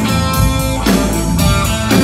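Live blues band playing, with electric guitar in front over bass guitar and a drum kit keeping a steady beat.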